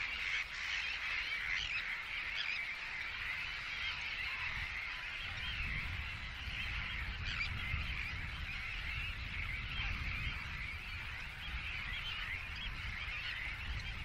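A large distant flock of geese calling continuously, many overlapping honks and yaps blending into a steady chatter, over a low rumble.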